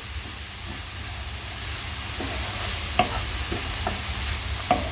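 Finely chopped onions frying in sunflower oil in a pan with a steady sizzle. They are being stirred, and the utensil knocks against the pan a few times, most clearly about three seconds in and near the end.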